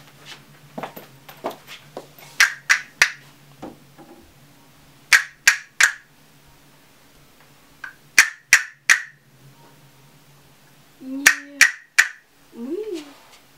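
A performer's short, sharp breathy hisses into a handheld microphone, in quick sets of three about three a second. The set is repeated four times a few seconds apart. Near the end there is a brief hummed sound that rises and falls in pitch.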